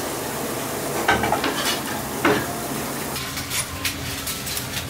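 Tap water running into a stainless steel sink while dishes and barista tools are washed, with a few sharp clinks of crockery and metal. About three seconds in the water stops, and a cloth wiping a steel counter follows with a few light taps.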